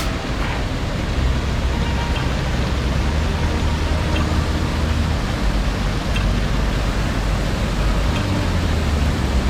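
Water rushing steadily over a low man-made check-dam waterfall on the Kaveri river: a continuous even rush with a deep rumble beneath it.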